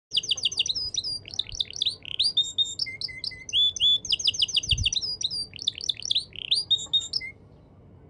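Male canary singing a long song of fast trills and sweeping whistled notes, in full song, stopping about seven seconds in.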